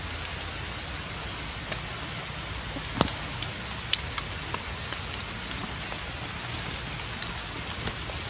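Steady outdoor hiss, like light rain or wind in foliage, with scattered sharp clicks and taps. The loudest clicks come about three seconds and four seconds in.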